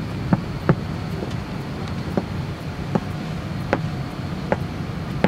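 Steady low hum of a parked airliner's cabin air system, with scattered sharp clicks and knocks from passengers moving about among the seats.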